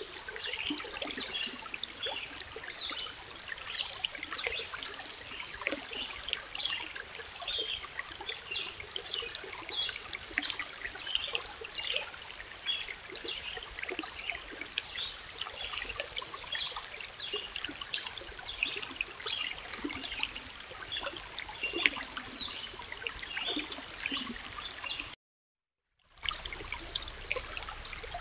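Shallow rocky stream running over and between boulders: a steady babble of small splashes and gurgles. It cuts out for about a second near the end.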